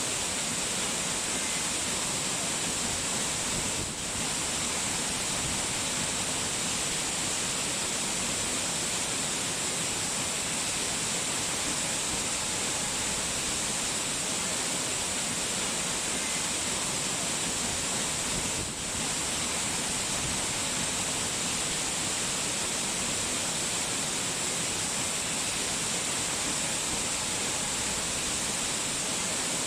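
Steady rushing water, an even hiss with no separate drops or splashes. It dips briefly twice, about four seconds in and about two-thirds of the way through.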